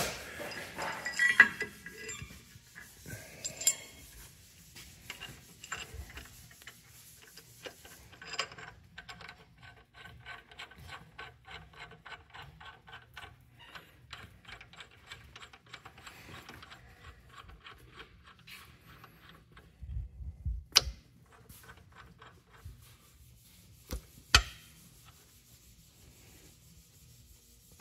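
Metal clinking and rubbing as a bearing and cap are fitted to a connecting rod on the crankshaft of a John Deere 4020 engine. A long run of fast, light clicks follows, and two sharp metallic clicks come near the end.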